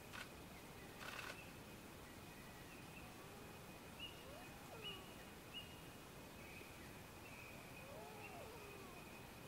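Faint, distant wailing calls of red-throated loons over a quiet pond: two rising-and-falling wails about four seconds apart, with a few short high chirps between them and two soft knocks in the first second or so.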